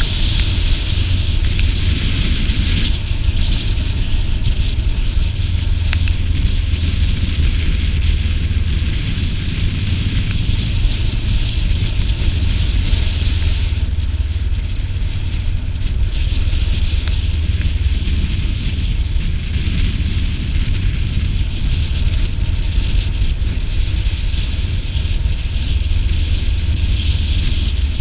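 Steady rush of riding wind on the microphone of a camera on a moving motorcycle, over a low rumble of the bike running at speed.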